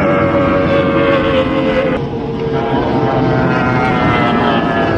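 Racing powerboat's outboard engine running at high revs, a dense droning tone whose pitch slowly falls, with a brief dip about two seconds in.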